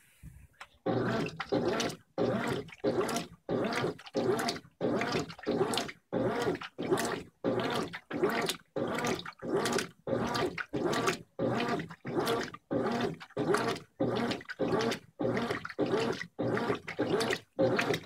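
Brastemp 15 kg top-load washing machine agitating a full load: water and wet clothes slosh with each back-and-forth stroke of the agitator, in a steady rhythm of about one and a half strokes a second that starts about a second in.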